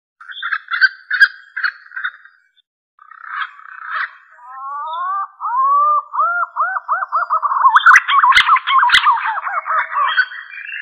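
Punai (green pigeon) lure calls. Short whistled notes come first, then after a brief pause a long run of looping, wavering whistles that climb at first and grow louder. Two sharp clicks sound near the end.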